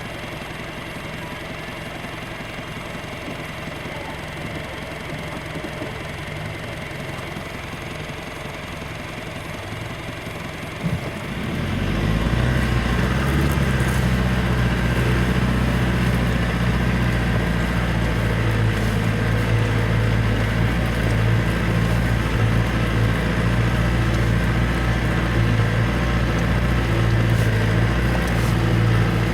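Off-road 4x4's engine running at a low idle. About eleven seconds in there is a short knock, then the engine gets much louder and holds a steady, stronger note as the vehicle is driven on under load.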